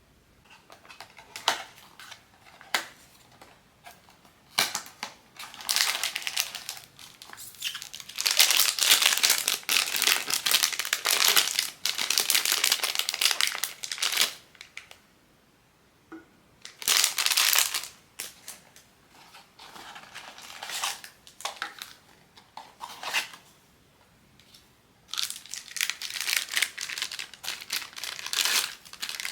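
Plastic blind-box packaging crinkling and tearing as it is unwrapped by hand, in irregular rustling spells with scattered sharp clicks. The longest, loudest spell comes about a third of the way in.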